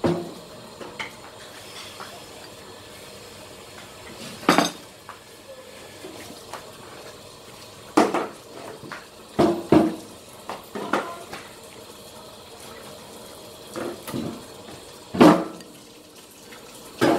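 Chopsticks knocking and scraping against a ceramic rice bowl: a string of short, irregular clicks a few seconds apart.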